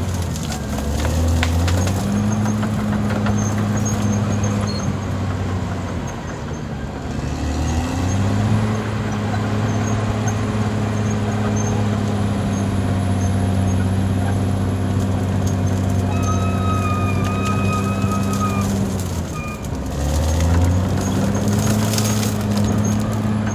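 Caterpillar D6R XL bulldozer's diesel engine running steadily. Twice the engine note sags in pitch briefly and then picks back up, and a thin high whine sounds for a few seconds near the end.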